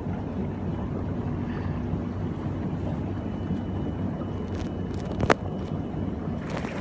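Whirlpool bath with its jets running: a steady low pump hum over churning water. A single sharp click about five seconds in.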